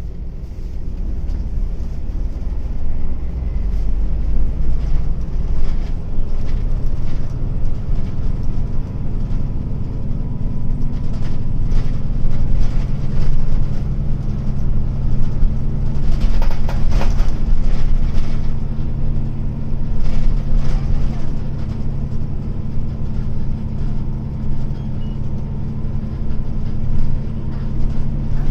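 Hino Blue Ribbon long-body city bus heard from inside the cabin on the move: the diesel engine runs steadily under load, getting louder over the first few seconds, with a faint thin whine and a brief patch of rattles a little past halfway. The uploader calls it an odd-sounding bus, its engine note a little different from a normal Blue Ribbon even with the air-conditioning off.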